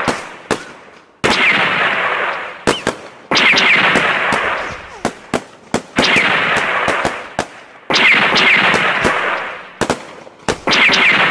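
Gunfire sound effect: a sudden burst of shots that fades away over about a second and a half, repeated about every two seconds, with a few sharp clicks between bursts.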